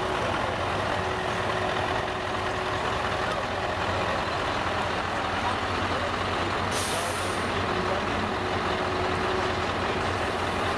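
Scania trucks rolling past at low speed with their diesel engines running, and a short, sharp air-brake hiss about seven seconds in.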